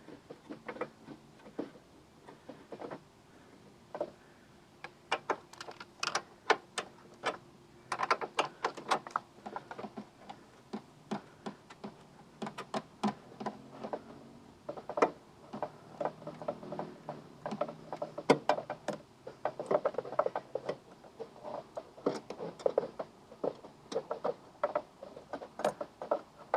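A wrench working the battery tie-down bolts: irregular metal clicks and clinks, some single and some in quick runs, as the bolts are loosened.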